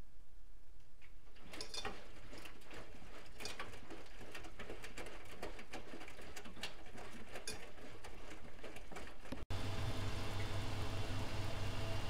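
Bosch front-loading washing machine at work: after a low hum, laundry and water tumble in the turning drum with irregular patters and clicks. About nine and a half seconds in the sound breaks off for an instant and gives way to a louder, steady motor hum with a low drone.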